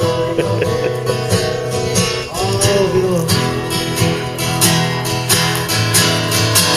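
Country-style music with a strummed acoustic guitar keeping a steady rhythm.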